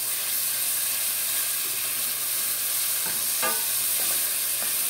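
Olive oil and red pepper paste sizzling steadily in a stainless steel pot while a wooden spoon stirs them through.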